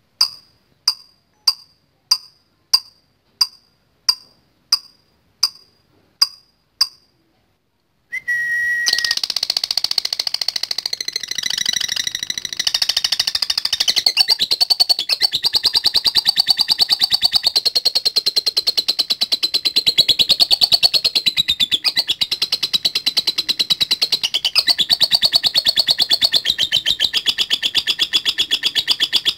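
Lovebird calling: about a dozen sharp chirps at roughly two a second, then, about eight seconds in, a long unbroken rapid chattering trill, the 'ngekek panjang' that lovebird keepers prize.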